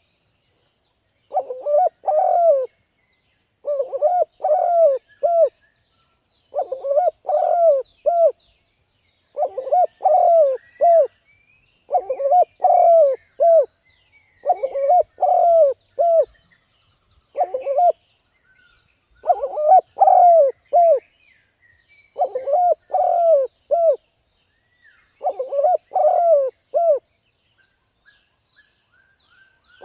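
Spotted dove cooing: a short phrase of three or four low notes, repeated every two to three seconds, with a longer pause near the end. Faint twittering of small birds sounds between the phrases.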